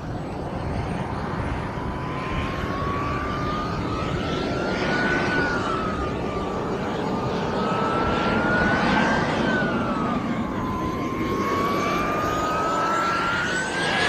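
RC model jet's engine whining as it taxis: the whine rises and falls three times as the throttle is worked, with a faint high whistle above it, and climbs again at the end.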